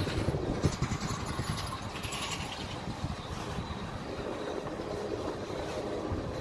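Tank cars of a Norfolk Southern freight train rolling past, with a steady low rumble of steel wheels on the rails and irregular clicking and knocking from the running gear.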